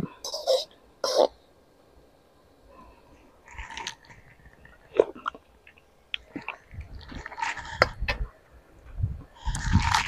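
Someone tasting a freshly made tamarind sauce: short mouth sounds and a few sharp clicks, in brief spells with quiet gaps between them.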